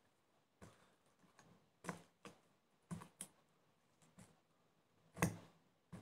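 Metal fork mashing peeled bananas on a plate: a series of separate faint clicks and taps as the fork strikes and scrapes the plate, the loudest about five seconds in.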